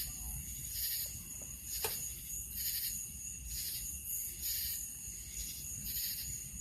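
Night insect chorus: a steady high-pitched trill with a pulsing call that repeats about once a second, and a single sharp click about two seconds in.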